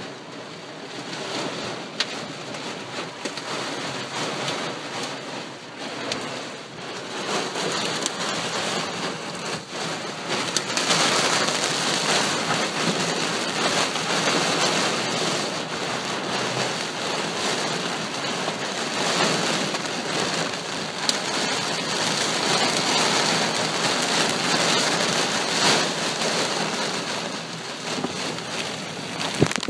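Heavy rain pouring in a severe thunderstorm, growing heavier about ten seconds in, with a few sharp taps.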